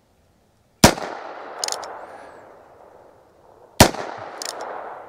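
Two shots from a Heritage Barkeep Boot .22 single-action revolver firing .22 LR, about three seconds apart, each trailing off in echo. A short metallic click follows each shot.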